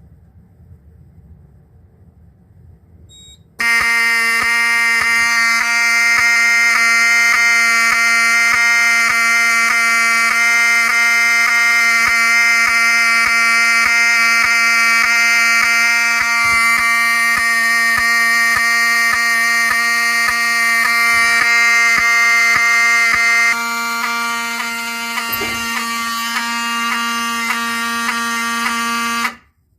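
Fire alarm horn sounding a steady, loud continuous tone, set off by a smoke detector tested with canned smoke. It starts suddenly a few seconds in and cuts off abruptly near the end.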